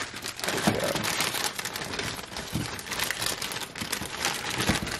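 Thin clear plastic bag crinkling and rustling continuously as it is handled and shaken to tip breaded sticks out onto a plate.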